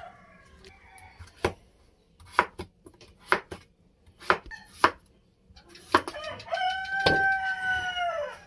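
Kitchen knife cutting potatoes on a wooden chopping board: a series of sharp knocks, roughly one a second. Near the end a rooster crows, one long call of nearly two seconds.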